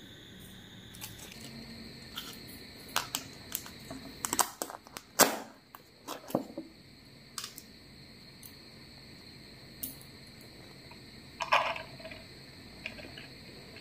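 Scattered clicks, taps and crinkles of a plastic takeaway tub and its plastic wrapping being handled and the tub's lid pried off. Near the end there is a short rustle as cooked rice is tipped out of the tub onto a plate.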